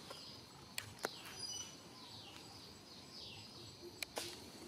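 Faint outdoor ambience with small birds chirping: repeated short high chirps, each falling in pitch, and a few sharp clicks about a second in and near the end.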